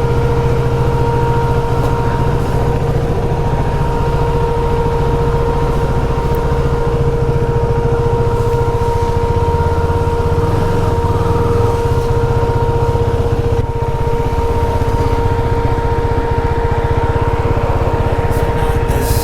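A motor vehicle's engine running steadily at an unchanging speed, with a low rumble and a constant hum above it.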